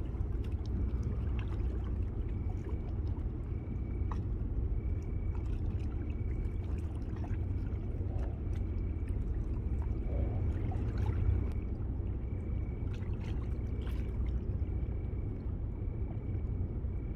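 Seawater lapping against a rocky shore over a steady low rumble, with a faint high chirp repeating a little under twice a second.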